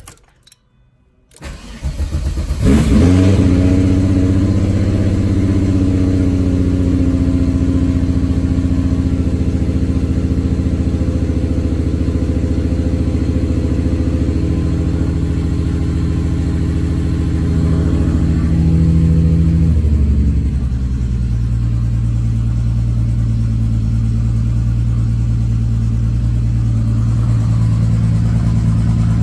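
Volkswagen Jetta engine cold-started: it cranks briefly and catches about a second and a half in, revs up, then settles into a steady, raised cold idle. Around twenty seconds in, the idle drops to a lower steady note.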